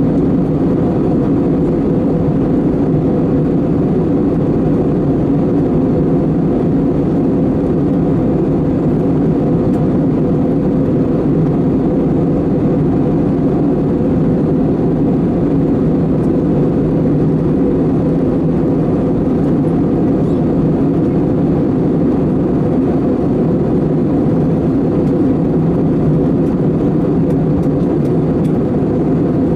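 Steady cabin noise inside an Airbus A320-200 in flight: a constant drone of its CFM56 turbofan engines and rushing airflow, with a steady low hum running through it.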